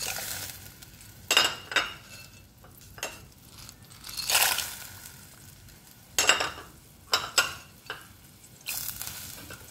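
Dry penne poured from a plastic packet into a pot of broth, a brief rush at the start. Then a handful of short, sharp clinks and rustles with quiet gaps between them.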